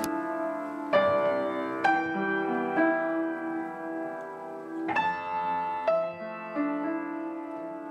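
Piano playing a slow, gentle melody: single notes and chords struck roughly once a second, each left to ring.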